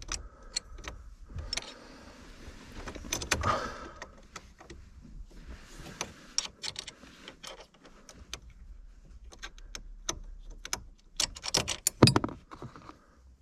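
Irregular metallic clicks, ticks and knocks of hand tools and small bolts being worked into a pedal in a car footwell, as the bolts are snugged down by hand, with a loud cluster of sharp clacks near the end.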